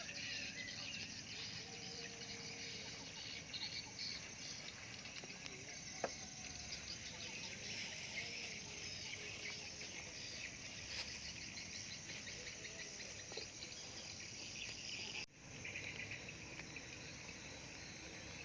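Steady chorus of insects chirring, with frog calls mixed in. A single faint click about six seconds in, and a brief break in the sound near the end.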